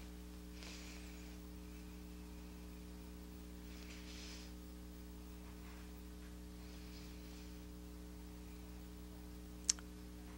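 Steady low electrical mains hum with a faint hiss, a few faint soft swishes, and a single sharp click near the end.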